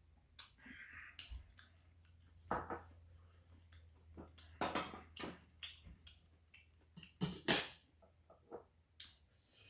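Close-up eating sounds of tteokbokki: wet chewing and slurping in short bursts with small clicks, loudest about seven and a half seconds in, over a faint low hum.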